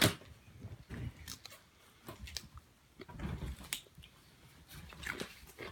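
A toddler biting and chewing a cracker: scattered small crunches, with soft low movement noise about three seconds in.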